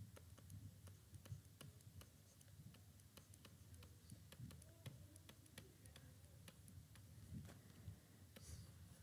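Faint, irregular clicks and taps of a stylus on a tablet screen as numbers are handwritten, several a second over a low background hum.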